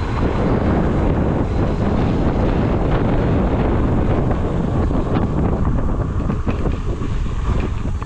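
Wind buffeting the microphone of a camera riding on a moving electric scooter: a loud, steady, low rumble.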